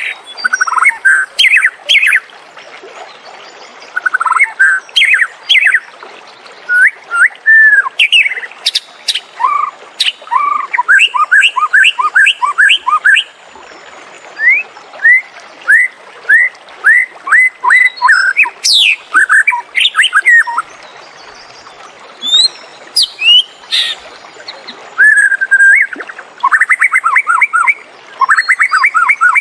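White-rumped shama singing a varied song: clear whistled notes and quick runs of repeated notes, with a few high sweeping notes, delivered in phrases separated by short pauses.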